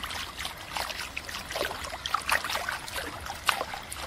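Water splashing and churning in an irregular patter as legs kick at the stern of a small dinghy.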